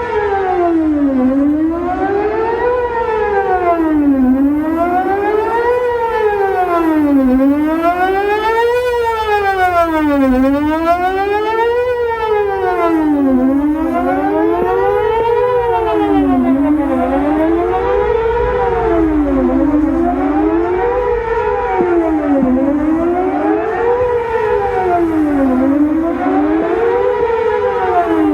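Whelen WPS 4008 electronic outdoor warning siren sounding its test tone. The pitch rises and falls in even sweeps about every one and a half to two seconds, without a break.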